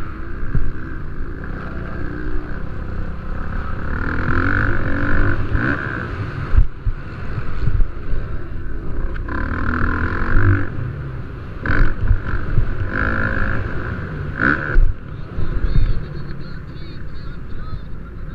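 Motocross dirt bike engines racing on the track, their note swelling and fading as bikes go by, with wind buffeting the microphone.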